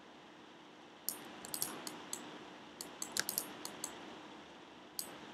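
Computer keyboard and mouse clicks: a quick, uneven run of sharp clicks starting about a second in and lasting about three seconds, then one more click near the end, over faint room hiss.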